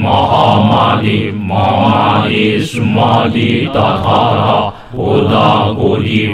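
Mantra chanting in a low-pitched voice, held in long sustained phrases with a short pause for breath about five seconds in.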